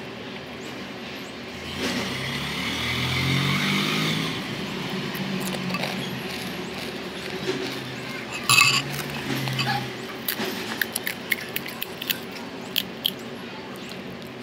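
Crisp panipuri shells being cracked open with fingers and handled over a glass bowl: a loud crack about eight and a half seconds in, then a run of small sharp crackles and clicks near the end. A background sound swells and fades between about two and six seconds in.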